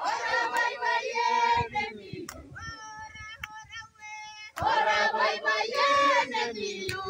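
A group of people singing or chanting together in two loud bursts, one at the start and one a little past halfway, with a single high voice holding long level notes in between.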